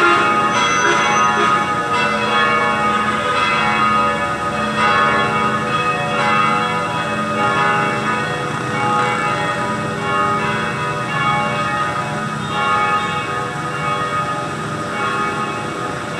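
A set of three cast church bells, about 1800 kg in all and cast at Kiên Lao, Nam Định in 2013, ringing for Sunday evening Mass. They are struck again and again, so their tones ring into one another, easing off a little toward the end.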